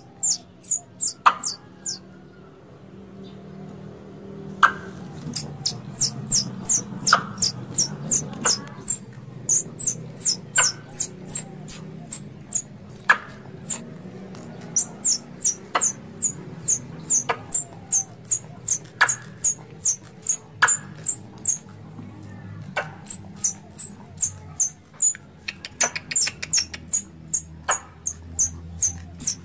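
Tree squirrels calling with runs of short, high chirps, each a quick falling squeak, about four a second, with sharp ticks every second or two. These are the calls of squirrels in heat.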